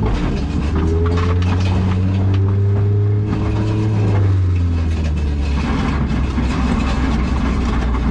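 A motor vehicle's engine running with a steady low hum, its pitch rising slightly a second or two in. After about four seconds it gives way to a rougher, noisier rumble.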